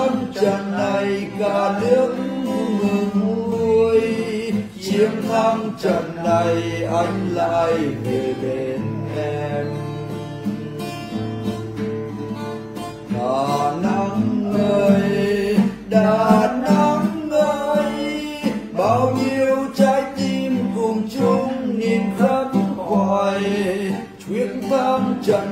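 A man singing a Vietnamese song while playing an acoustic guitar.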